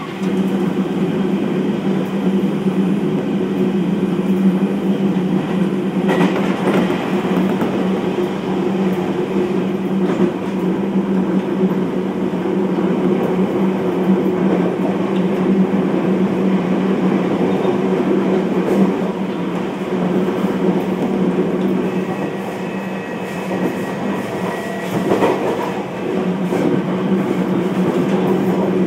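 Interior running sound of a Keio 1000 series electric train with a Toyo IGBT-VVVF inverter, heard from inside the car between stations. A steady rumble of wheels and motors, with a few clicks as the wheels cross rail joints.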